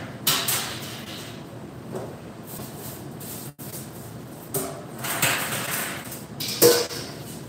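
Food-prep handling at a kitchen counter: rustling and scraping of utensils and containers, with a sharp clatter near the end.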